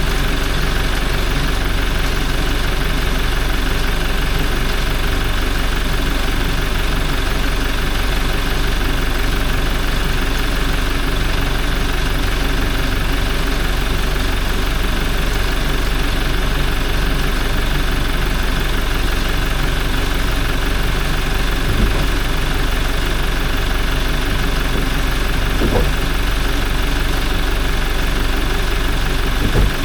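Toyota 1GD-FTV 2.8-litre four-cylinder turbodiesel idling steadily, with a few faint clicks late on.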